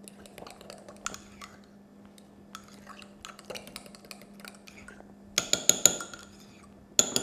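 A spoon stirring potato soup in a mug, with added broth being worked in. Soft scrapes and light taps come first, then from about five seconds in a quick run of ringing clinks, several a second, as the spoon strikes the side of the mug.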